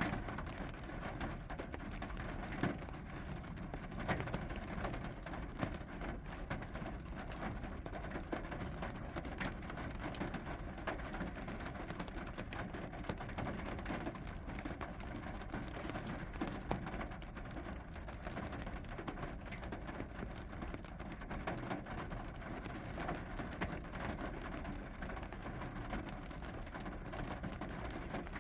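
Steady rain falling, with frequent small ticks of drops striking a surface.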